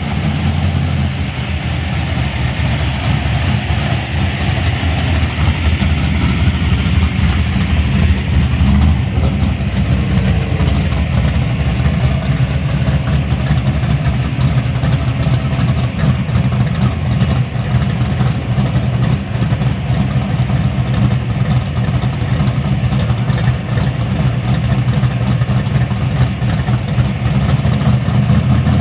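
Plymouth Duster 340's V8 engine idling steadily at the drag-strip starting line, a continuous low rumble that gets a little louder in the first few seconds.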